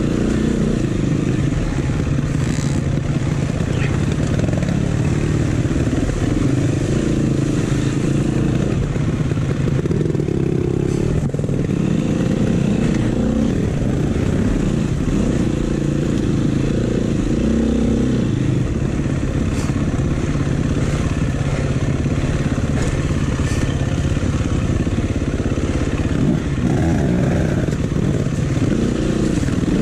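Dirt bike engine running at low speed, the throttle opening and closing over and over so its pitch keeps rising and falling as the bike picks its way over rocks, roots and mud. A few sharp knocks come from the bike clattering over the rough ground.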